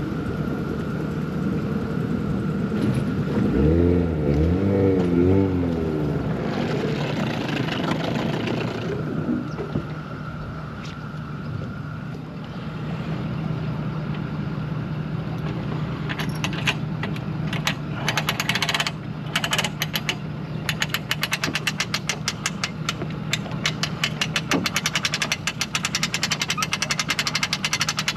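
An engine running steadily, its pitch wavering briefly a few seconds in; from about halfway a rapid, regular ticking joins it.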